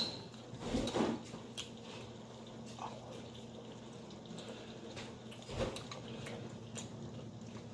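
Quiet wet mouth sounds of a person eating, chewing and smacking, with a few soft clicks about a second in and again past the middle.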